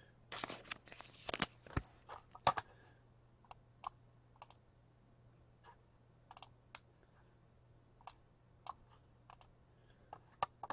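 Trading cards being handled by hand: a quick run of rustling and snapping in the first few seconds, then light, sparse clicks as the cards are thumbed through.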